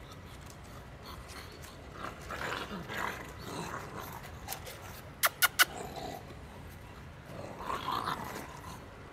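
Shar-pei puppies growling in play as they wrestle, in two rough bouts. Three quick, sharp, loud sounds come close together a little past the middle.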